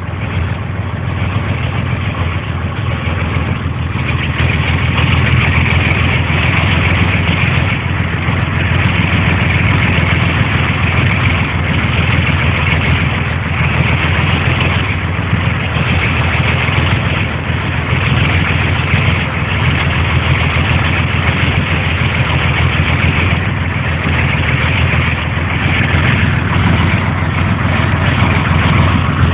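Heavy vehicle engine running steadily at an even pitch, with a higher noise that swells and fades every second or two.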